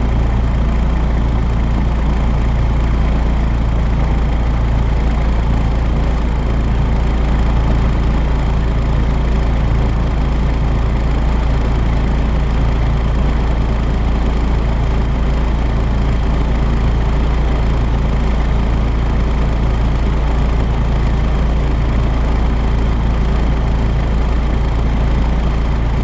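Volvo B10BLE bus's six-cylinder diesel engine idling steadily with a low, faintly pulsing rumble.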